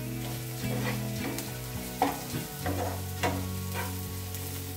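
Onions, garlic, chilli flakes and curry leaves sizzling in hot coconut oil in a nonstick frying pan while a wooden spatula stirs them, with repeated scraping strokes against the pan, over a steady low hum.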